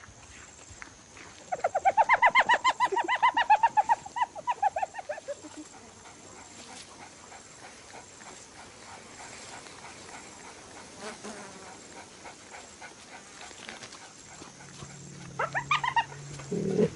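An animal giving a rapid run of high, yelping calls, about eight a second, starting about a second and a half in and fading out after about four seconds. Near the end a shorter run of similar calls comes over a low, steady rumble.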